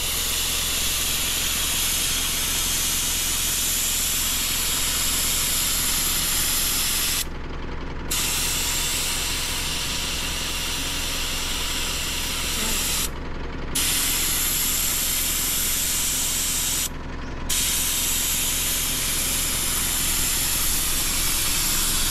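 Compressed air hissing steadily out of an SUV tyre through a dial-gauge tyre deflator on the valve, the tyre being let down for sand driving. The hiss stops briefly three times.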